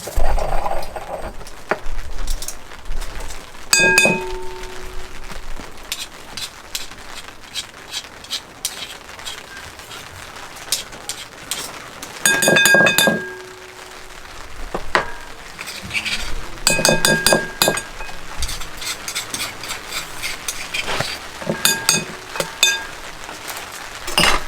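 Pestle pounding garlic cloves with salt in a mortar to break them into a paste: repeated sharp knocks, several of which clink and ring on with a clear tone, coming in clusters a few seconds apart.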